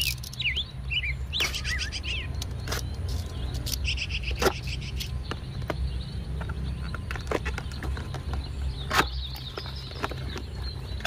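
Small birds chirping on and off, with scattered clicks and taps of a cardboard toy box being handled and opened, over a steady low rumble.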